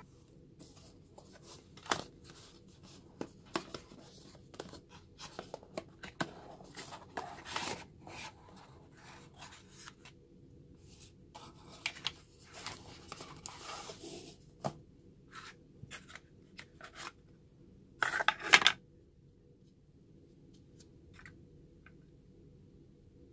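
Handling noises from unboxing a small camera: cardboard box flaps and the packaging tray rubbing and scraping, with scattered clicks and taps as the camera is lifted out and handled. A brief, louder scrape comes about eighteen seconds in.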